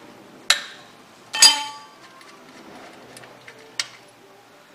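Metal hand tools clinking: three sharp clinks, the loudest about a second and a half in with a brief metallic ring.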